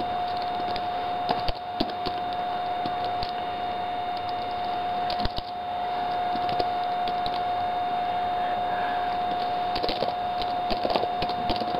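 Scattered clicks of a laptop's keyboard keys being typed on, over a steady hiss and a constant whine.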